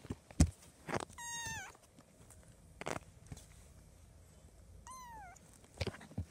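Kitten meowing twice, short high mews that fall in pitch, about a second in and again near the end. Several sharp knocks and bumps come from the play, the loudest about half a second in.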